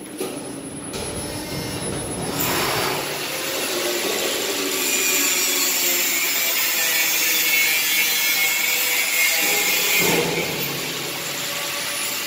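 Brass cold chamber die casting machine working: a long hissing rush with a steady whine, swelling about two seconds in and easing off near the end.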